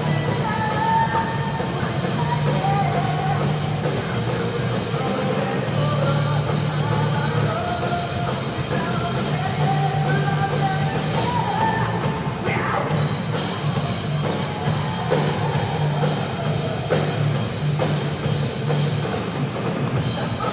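Live rock band playing: bass guitar holding low notes, electric guitar and drum kit, with a lead vocalist singing over them.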